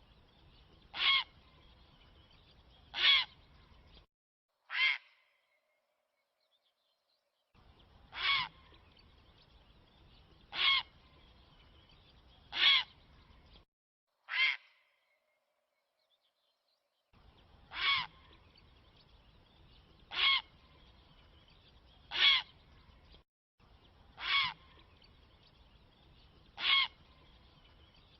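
A recorded bird call played as a hunting lure: one short call repeated about every two seconds, a dozen times, with two brief dead-silent gaps where the recording is cut.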